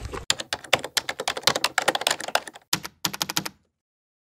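Typewriter typing sound effect: a quick run of key clacks for about three seconds, with a short break near the end, then it stops dead.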